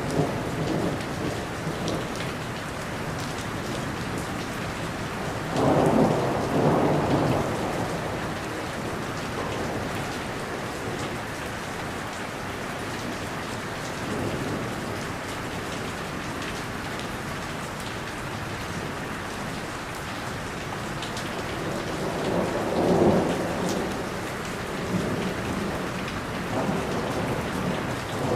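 Thunderstorm: steady rain falling on a surface, with thunder rumbling twice, about six seconds in and again near the end, and a fainter swell between.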